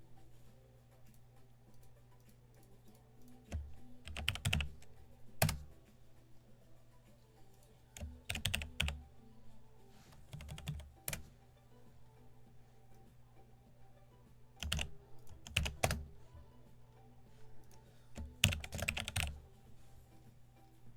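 Computer keyboard typing in about five short bursts of rapid key clicks, over a steady low hum.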